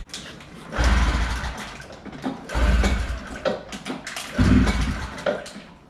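A 1983 Yamaha snowmobile's two-stroke engine being pull-started on gas poured down the carburetor: three hard pulls, a little under two seconds apart, each turning the engine over without it catching.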